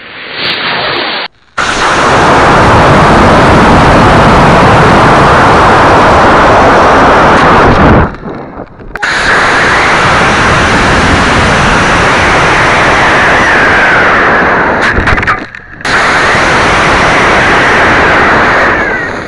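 A model rocket in flight, heard from its own onboard camera: a loud, steady, overloaded rush of motor exhaust and wind over the airframe. It comes in three long stretches broken by short cuts, after a quieter opening second.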